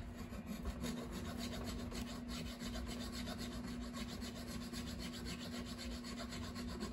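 Guitar nut files rasping back and forth in the string slots of the nut, deepening them to lower the strings at the first fret: quick, steady strokes over a steady low hum.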